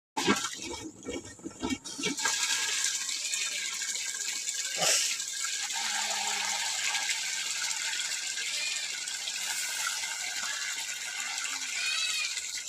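Water running in a steady rush, as when someone bathes, with a few knocks and rustles in the first two seconds.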